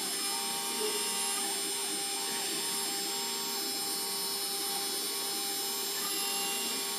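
Small 4-axis CNC router carving an olive pit on its rotary axis: the spindle runs with steady high tones, and the axis motors add short tones that start, stop and shift in pitch as the machine makes its moves.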